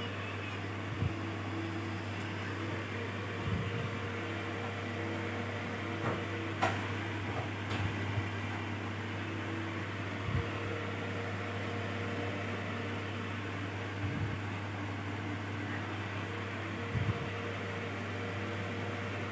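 Steady low machine hum with faint steady tones above it, broken by a few soft, brief knocks.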